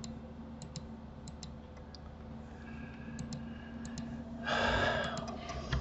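Scattered single clicks of a computer mouse and keyboard, over a steady low hum from the computer. About four and a half seconds in there is a short breathy exhale.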